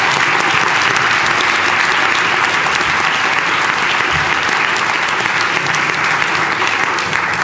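An audience in a hall applauding steadily: many people clapping at once, a dense even patter that carries on without a break.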